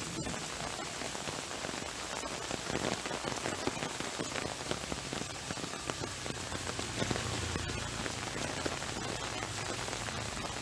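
Heavy rain falling: a dense, steady hiss made up of many close, quick drop impacts.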